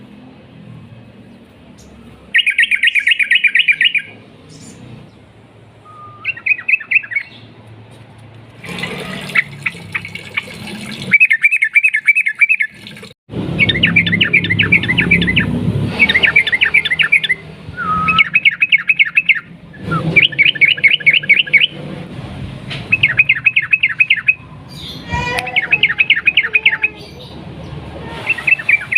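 Yellow-vented bulbul singing in loud, rapid chattering bursts of about a second or two each, repeated again and again with short pauses between.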